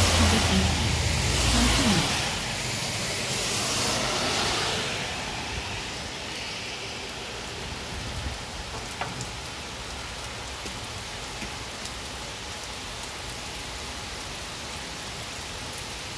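Cars driving past on a rain-soaked road, tyres hissing on the wet surface with a low engine hum, fading away over the first five seconds. Then steady rain falling, with a few light ticks of nearby drops.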